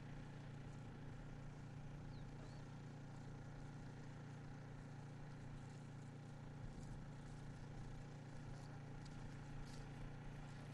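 Faint, steady low hum of vehicle engines running, with no change through the stretch.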